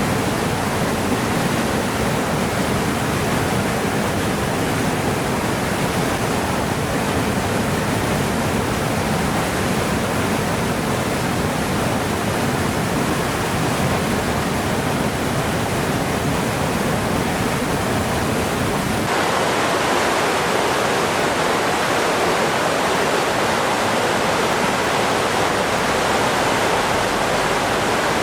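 Swollen mountain creek in flood from heavy rain and snowmelt: a loud, steady rush of churning water. About two-thirds of the way in, the rush turns abruptly higher and hissier, with less low rumble.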